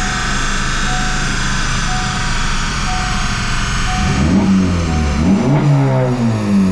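Honda Civic Type R FL5 on a chassis dyno, coasting down in neutral after a run: the steady whine of the tyres and rollers fades as they slow, with a short beep about once a second. From about four seconds in, the turbocharged 2.0 engine is blipped several times, revs rising and falling.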